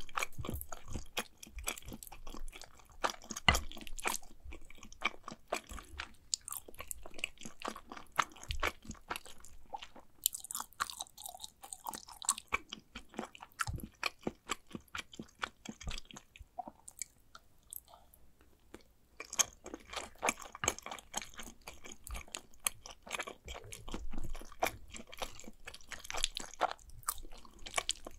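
Close-miked chewing of macaroni and cheese: wet, sticky mouth sounds and lip smacks in an irregular run, easing off for a few seconds a little past halfway and then picking up again.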